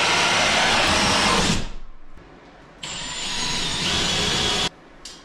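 Cordless drill with a hole saw cutting through an OSB ceiling panel for a recessed spotlight. It runs in two spells: one stopping about a second and a half in, the other starting about three seconds in and cutting off near the end.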